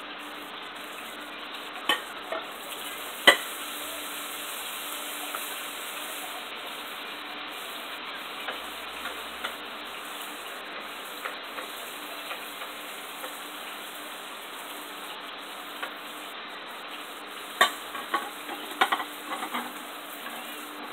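Yellow snapper pieces frying in coconut oil, a steady sizzle. Sharp clinks of a utensil against the pan come about two and three seconds in, and again as a cluster near the end.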